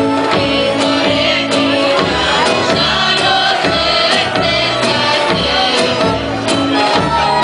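Serbian folk music for a dance from Vranje: a melody with held and gliding notes over a regular drum beat.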